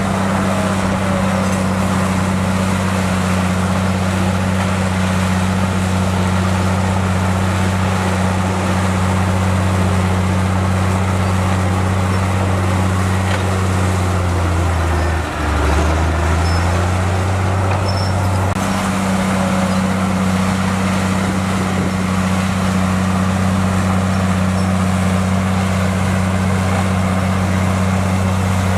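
Heavy diesel engine of earthmoving equipment running steadily with a deep hum. About halfway through, its note dips briefly, then returns to the same steady pitch.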